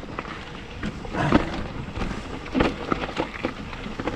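Santa Cruz mountain bike rattling and knocking as it rolls down over rock, with irregular clicks and clunks and a couple of louder thuds, about a second in and again past two and a half seconds.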